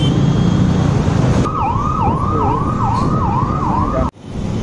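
Wind and road noise on a motorcycle helmet mic, then, about a second and a half in, a siren sweeping rapidly up and down, about two or three sweeps a second. It cuts off abruptly near the end.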